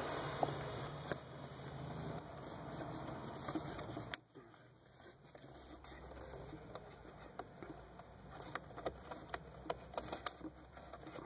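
Faint rustling and small clicks of a hand working a rubber vacuum hose onto its fitting among wiring harnesses behind a car's dashboard. The background hiss drops suddenly about four seconds in.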